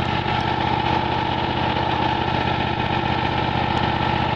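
Kohler 20 HP V-twin engine of a Miller Legend 302 engine-driven welder running steadily at constant speed, with a steady high tone over the engine note.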